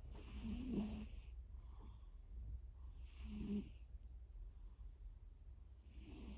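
A sleeping cat snoring: three snoring breaths about three seconds apart, each a soft low buzz with a breathy hiss.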